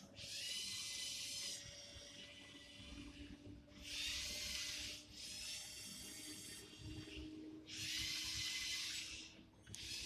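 Small geared electric motors of a Lego Mindstorms EV3 remote-control car whirring in five bursts of about a second each as the car drives and turns. Each burst has a high whine that rises briefly as the motor spins up.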